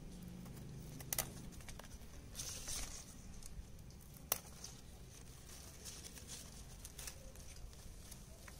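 Faint rustling of Indian pennywort leaves and stems as they are handled and cut with a small knife, with a few short sharp snaps, the sharpest about four seconds in.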